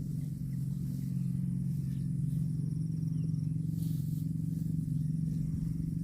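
A steady, low engine or motor hum running without a break.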